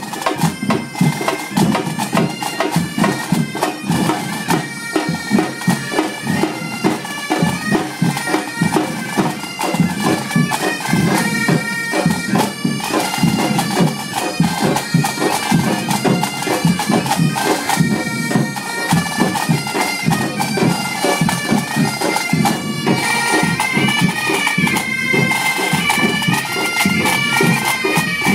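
Breton bagad pipe band playing together with a percussion group: bagpipes carry a melody over fast, dense drumming.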